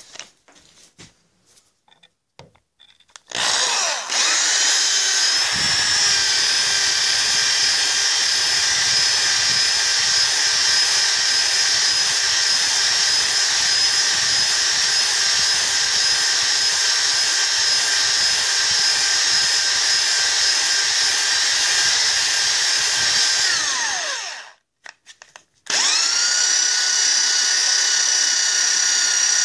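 Handheld electric drill spinning a hone in the bore of a model steam engine cylinder. After a few seconds of handling clatter, the drill whines up to speed, runs steadily, winds down and stops, then starts again near the end.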